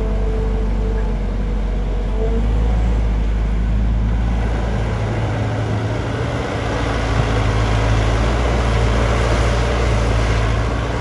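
JCB JS205 excavator's diesel engine running steadily, with a low hum and a rougher, hissier note that builds in the second half.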